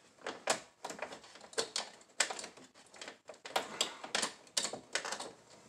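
Irregular clicking and scraping as insulated wires are pulled out of a double-pole circuit breaker's terminals inside a metal breaker panel.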